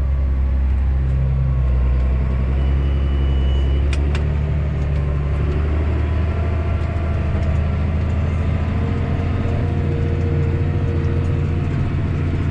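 Tractor engine running steadily under load as it pulls a planter, a deep drone throughout. A brief thin high beep sounds about three seconds in, and a single click about four seconds in.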